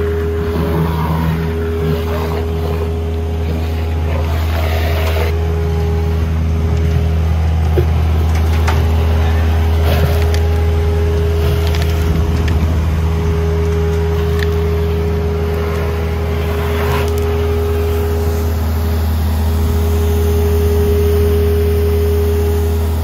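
Boss Vac hydrovac unit with its 4310 vacuum blower running steadily, a loud low drone with a steady hum, as the vacuum tube sucks up soil and water from a hole loosened by a water wand.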